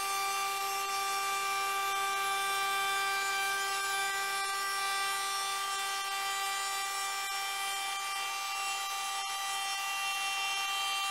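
Trim router with a straight-cut bit running at a steady high whine as it routes old glazing putty out of the rebate of an Oregon pine door frame.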